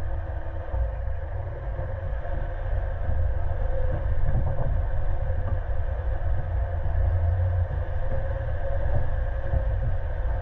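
Suzuki Jimny JB74, with its 1.5-litre four-cylinder petrol engine, driving on a dirt off-road track: a steady low rumble of engine and tyres on rough ground, with scattered small knocks.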